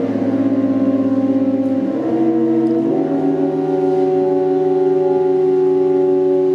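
High school wind ensemble playing slow, sustained chords; the harmony shifts about two and three seconds in, then holds.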